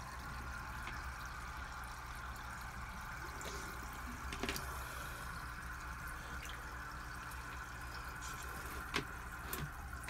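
Water in a shallow plastic bath tub lapping and dripping as a Savannah monitor lizard moves and is handled in it, over a steady low hum, with a couple of sharp clicks about four and a half and nine seconds in.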